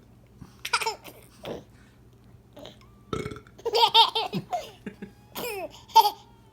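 A man burping on purpose and a baby laughing at the burps, in several short separate bursts.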